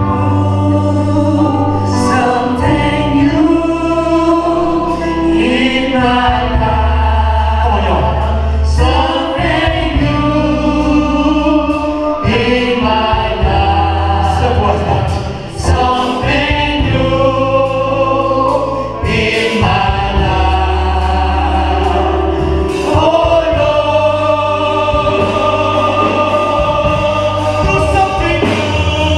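Gospel music: a choir or worship group singing over a band, with sustained bass notes that change every couple of seconds.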